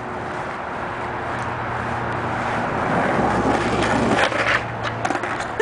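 Skateboard wheels rolling on street asphalt, a rough rumble that grows louder past the middle, with a few short clicks from the board about four seconds in.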